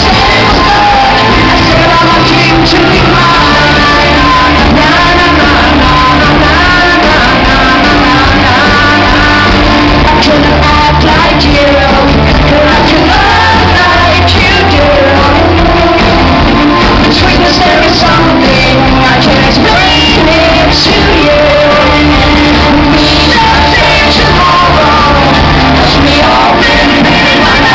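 Live rock band playing loudly, a woman singing lead over bass, guitar, drums and keyboard, recorded from the audience.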